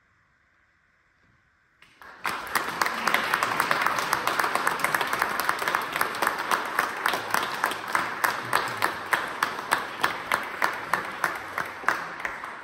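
Near silence for about two seconds, then an audience suddenly breaks into applause, many hands clapping with single claps standing out, thinning and fading near the end.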